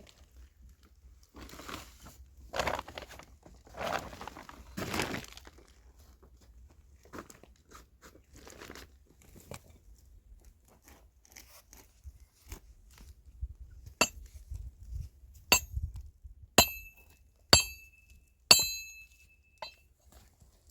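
A few soft rustling sounds, then a series of sharp clinks of glass or china, about one a second in the latter part, each with a brief high ring.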